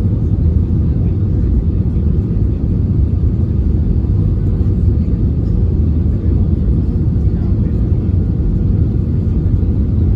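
Steady low rumble of a passenger airliner heard from inside the cabin, with engine and airframe noise and a faint steady hum on top.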